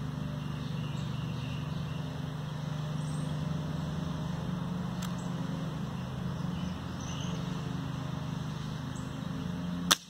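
Steady low machine hum from a running outdoor air-conditioning unit, then near the end a single sharp crack as an RWS Model 34 spring-piston air rifle fires.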